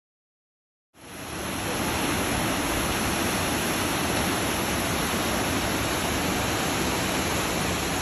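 Silence for about a second, then the steady rush of the Triberg waterfalls cascading over snowy rocks fades in quickly and holds unchanged.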